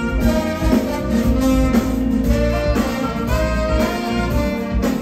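Live show band playing jazzy music, with brass and drums.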